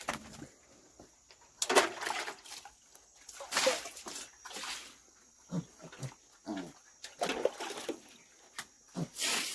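Water splashing several times as a pig pen and its pigs are washed, with short, low pig grunts in between.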